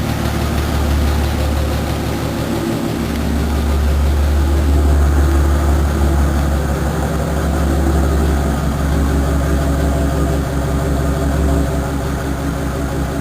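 Willys Rural's Chevrolet 4.1 straight-six engine running with a steady deep rumble, briefly easing off about two and a half seconds in.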